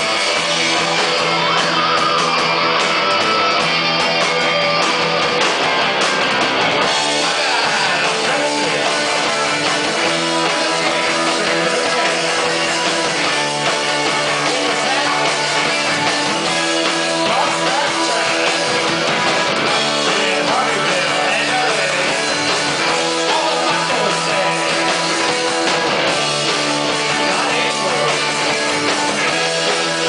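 Live rock band playing, with electric guitars, bass and drums.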